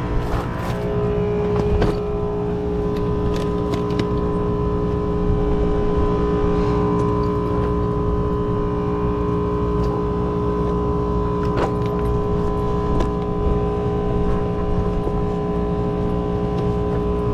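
Steady mechanical hum of running rooftop air-conditioning equipment, with a few light clicks and taps early on and once more later.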